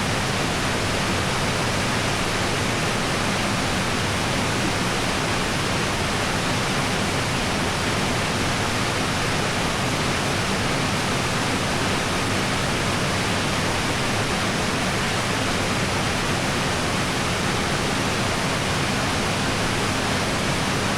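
Waterfall pouring into its pool, a steady, even rush of falling water.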